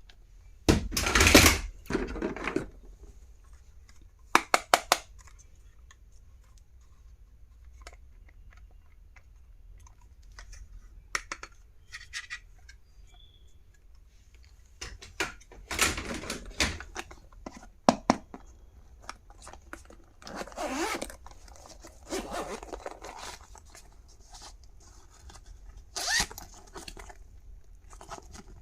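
Stationery and its packaging being handled: scattered bursts of rustling and scraping, with a zip running, and a quick run of clicks about four and a half seconds in.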